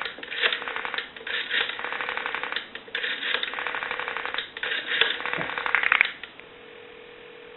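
Rotary dial of a candlestick telephone being wound and let run back for a string of digits, each return a quick run of clicks with short pauses between digits. About six seconds in the clicking stops and a steady ringback tone starts on the line as the called number rings.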